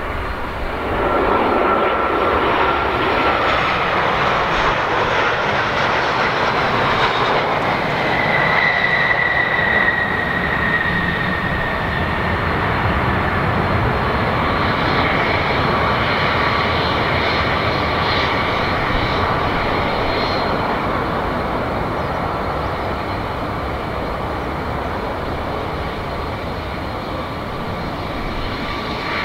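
Boeing 737-800's CFM56-7B turbofan engines on landing: a loud jet roar and whine as the airliner passes close on short final, the whine sliding down in pitch as it goes by, then a steady rumble as the jet rolls out down the runway.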